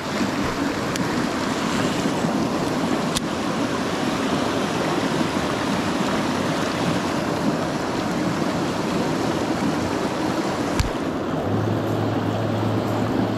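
Mountain stream rushing over rocks and through rapids, a steady noise of running water, with a sharp click about three seconds in and another near the end.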